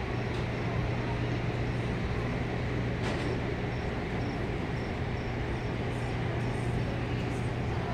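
Steady low machinery hum from docked ships at a berth, one constant low drone over a wash of noise, with a faint high pip repeating about twice a second.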